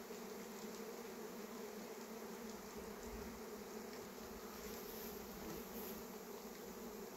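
A swarm of honeybees in flight, many bees buzzing together in a steady, unbroken hum.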